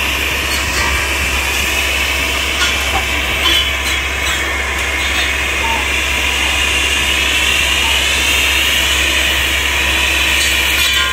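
Tree-trimming machine with a long boom-mounted saw running steadily: the carrier's engine and the spinning saw head. A whining tone wavers and rises through the second half, and there are a few short cracks about three to four seconds in.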